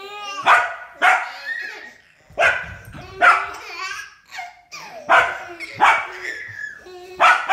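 Labradoodle giving a string of short, sharp play barks, about eight or nine, with brief pauses between them.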